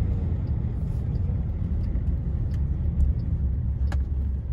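A car running, heard from inside the cabin as a low, steady rumble, with a few faint ticks and one sharper tick near the end.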